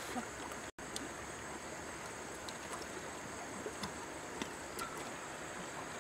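Steady rushing of river water, with a few faint clicks scattered through it; the sound cuts out for an instant just under a second in.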